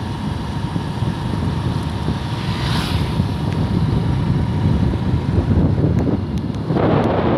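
Wind buffeting the microphone of a moving motorbike, over a steady low rumble of engine and road. A louder rush of noise swells briefly near the end.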